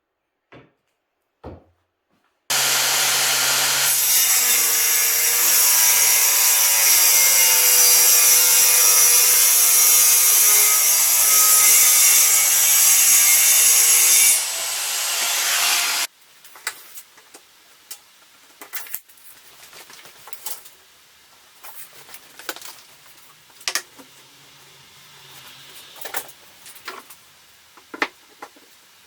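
Circular saw starting up and cutting through wood for about twelve seconds, its pitch wavering under load. The saw eases near the end of the cut and stops abruptly. Scattered light knocks and clatter follow.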